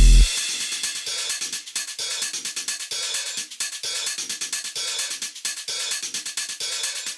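Background music with a fast beat of hi-hat and drum strokes; a heavy bass-laden passage stops sharply just before the start, leaving a lighter, thinner beat.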